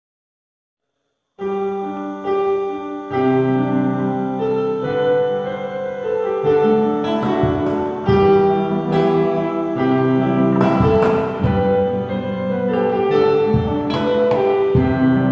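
A Yamaha electronic keyboard playing a slow piano-voiced instrumental intro, starting suddenly about a second and a half in, with occasional cajon hits joining in.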